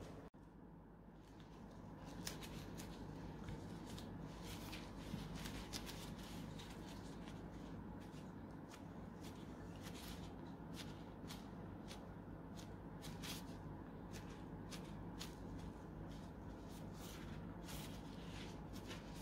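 Disposable plastic gloves crinkling in quick, irregular crackles as hands fold and press a filled pancake, over a steady low hum.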